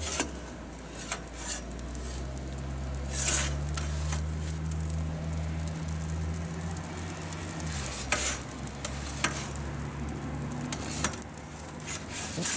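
Wood fire crackling and hissing inside a wood-fired pizza oven, with a scatter of sharp pops and scrapes every second or two. A low steady hum runs under it for a few seconds in the middle.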